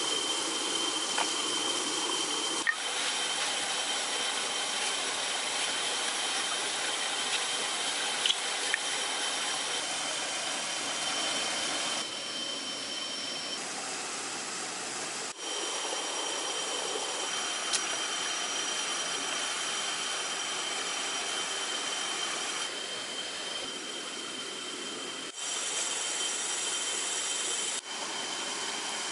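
Steady hiss of a rushing stream with a thin, steady high whine over it and a few small clicks; the texture changes abruptly several times.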